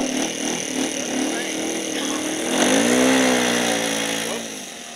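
Small engine of a radio-controlled model airplane running as the plane rolls across grass. The throttle opens about two and a half seconds in, raising the pitch and level, then eases back near the end. A sharp knock right at the start.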